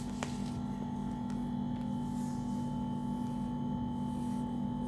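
Steady electrical hum with a faint hiss, holding several constant tones, and a single faint click just after the start.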